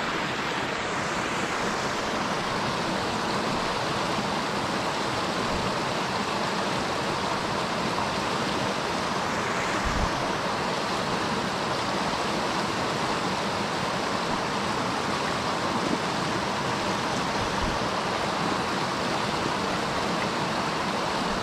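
Mountain stream running over rocks and small cascades: a steady, even rushing of water.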